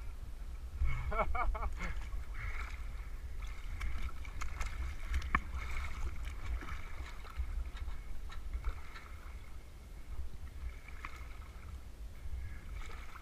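Lake water lapping and splashing against a camera housing at the water surface, with many small drip-like ticks over a steady low rumble. A short wavering call sounds about a second in.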